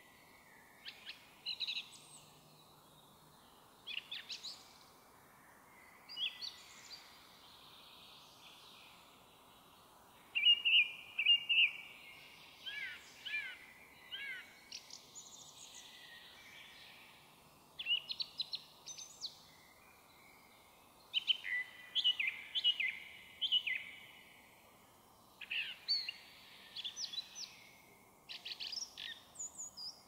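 Song thrush singing: loud phrases of repeated notes, each about a second long and a second or two apart, with other small birds faintly behind.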